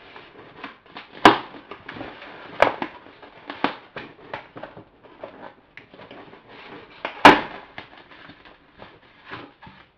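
Plastic food packaging crackling and snapping as it is wrestled open by hand, with a few sharp cracks, the loudest about a second in and again about seven seconds in.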